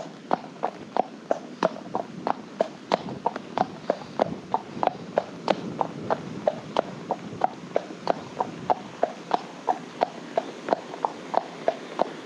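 Horse's hooves clip-clopping on a tarmac lane at a walk: an even rhythm of about four hoofbeats a second.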